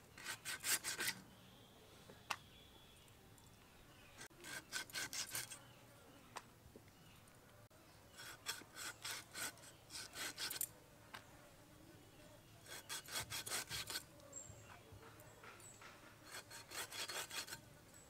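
A blade sawing back and forth through a large stingray's flesh, cutting it into pieces, in short runs of rapid strokes every few seconds with pauses between.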